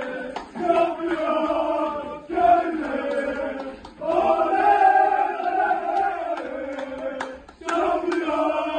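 A group of men chanting a celebration song together in unison, in loud phrases of a second or two with short breaks between them.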